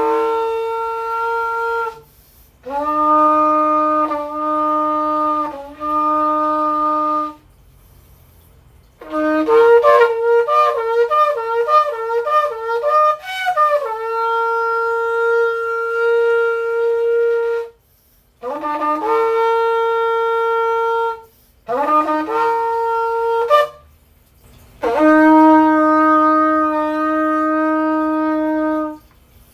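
Kudu-horn shofar, 46.5 inches long, blown in a series of calls: long held tekiah-style blasts that jump between a low note and a higher one, and a run of rapid broken notes about nine seconds in.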